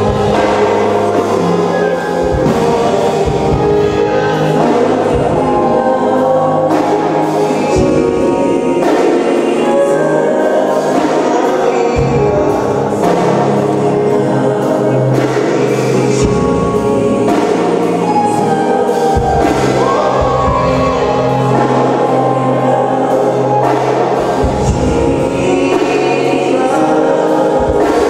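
Church choir singing gospel music, with a bass line underneath.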